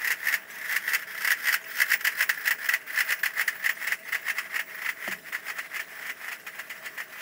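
Basel carnival drums played in a fast run of rapid, rattling strokes, several a second, easing slightly near the end.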